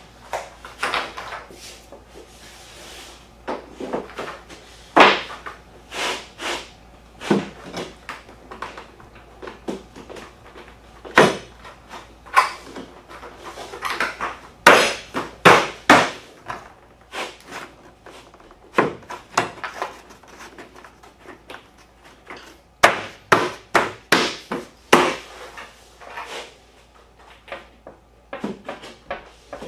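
Drop-and-lock laminate floor planks being fitted by hand: irregular sharp knocks and clicks as the planks are handled, set down and pressed into their locking joints. The knocks come in clusters, around five seconds in, from about eleven to sixteen seconds, and from about twenty-three to twenty-six seconds.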